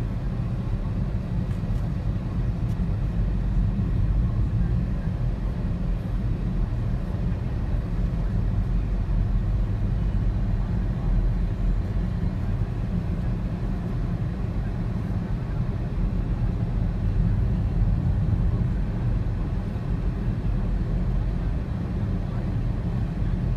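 Steady low rumble of a moving car's engine and road noise, unchanging throughout.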